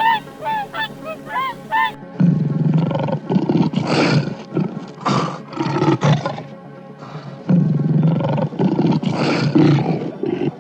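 Geese honking in a few short calls, then a big cat growling in long, rough, low-pitched stretches, the first from about two seconds in and a second after a brief pause near the three-quarter mark.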